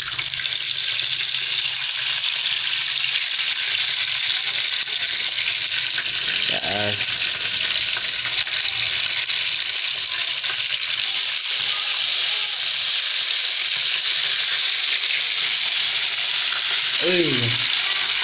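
Salt-and-chili-marinated butterfly lizards frying in hot cooking oil in a pan, a steady loud sizzle that holds throughout as more pieces are added.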